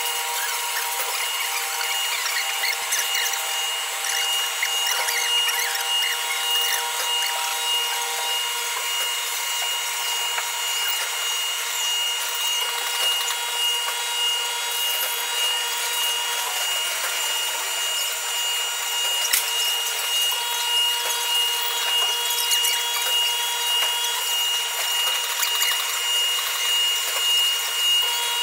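CNC vertical milling machine cutting a workpiece turned on a fourth-axis rotary table: a steady high whine from the spindle and cutter over a rough, scratchy cutting noise.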